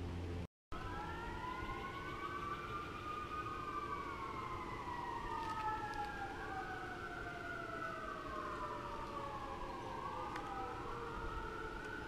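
Several sirens wailing at once, overlapping, each rising and falling slowly in pitch. They start after a brief audio dropout about half a second in.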